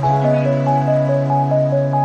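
Background music: a steady electronic track with a short repeating melody over held low notes.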